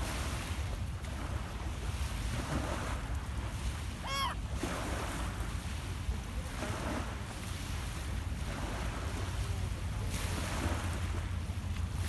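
Small lake waves lapping and washing onto a pebble beach in gentle swells every couple of seconds, over a steady low wind rumble on the microphone. A single short high call rises and falls about four seconds in.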